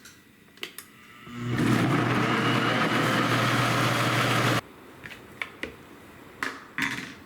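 Electric blender running for about three seconds, grinding boiled tomatoes and dried chiles into red salsa, then switched off abruptly; light clicks and knocks of handling before and after.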